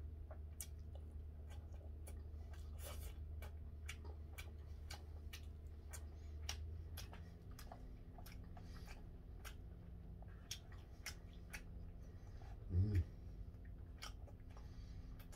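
Eating sounds: wooden chopsticks clicking and scraping against a plastic lunch tray, with mouth sounds of chewing, as irregular light clicks throughout. About thirteen seconds in, a short low hum-like vocal sound from the eater is the loudest thing.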